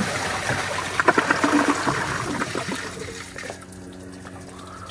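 Three toilets (Western Pottery, American Standard Cadet Pro and Kohler) flushing at once, with water rushing and gurgling down the bowls to carry away test sponges. About three seconds in the rush dies down to a quieter steady hiss and hum as the tanks refill.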